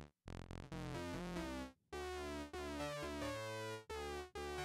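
Modal Cobalt8X synthesizer playing a sequenced run of hard-synced sawtooth notes. The mod envelope sweeps each note, so its tone glides through robotic, vowel-like timbres. The sound cuts out briefly just after the start and again near the middle.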